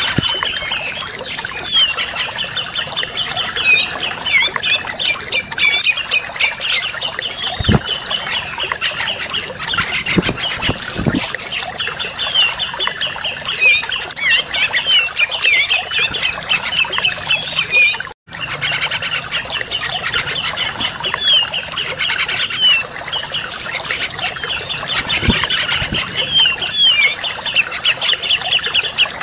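Cucak jenggot (grey-cheeked bulbul) calling in fast, harsh, overlapping chattering phrases, dense and continuous, with one brief cut to silence about 18 seconds in.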